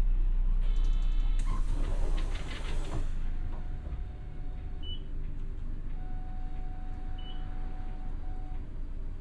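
Inside a Hankyu city bus: the diesel engine's low rumble, a short electronic chime about a second in, then a burst of air hiss lasting about a second and a half. After the hiss the bus idles more quietly.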